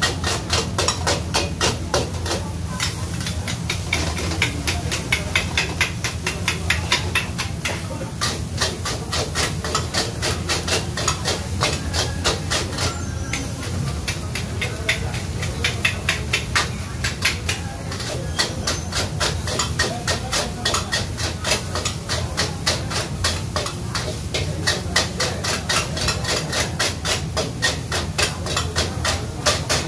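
Metal wok ladle and spatula clanking and scraping against a steel wok while fried rice is stir-fried, a fast run of strikes at about four a second, with sizzling and a steady low hum underneath.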